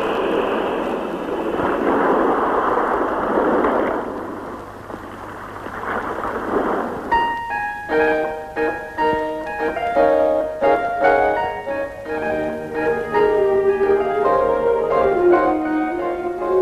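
Film score music: a dense, sustained wash of sound that fades about seven seconds in, followed by a run of quick separate keyboard notes.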